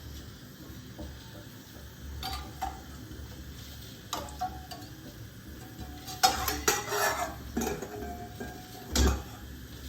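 Metal clinks and knocks of a cooking vessel being set down inside a pressure cooker: a few light clinks, then a cluster of rattling clinks, and a louder knock near the end.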